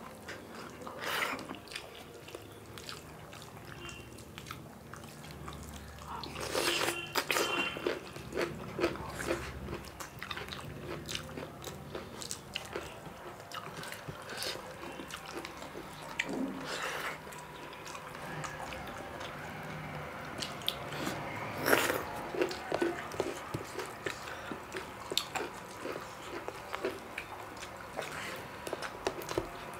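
Two people eating rice and rajma curry with their hands from steel plates: chewing and mouth sounds, and fingers squishing and mixing rice against the plates, with scattered short clicks and a few louder bursts.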